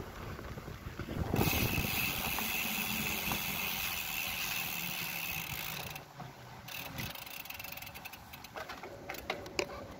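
Bicycle rolling over paving stones, with wind noise and a thin, steady high whine for several seconds. There is clicking and rattling from the bike in the last few seconds.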